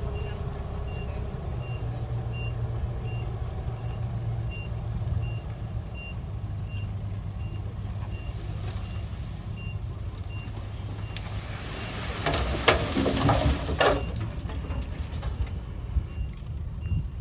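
Heavy diesel machinery running steadily, with a reversing alarm beeping evenly at just under two beeps a second. A louder burst of rough clattering and hissing comes at about twelve seconds in and lasts roughly two seconds.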